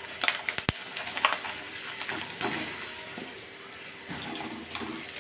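Shredded potato frying in hot oil in a steel pan, sizzling steadily, with a few sharp clinks of a metal skimmer stirring the strands against the pan.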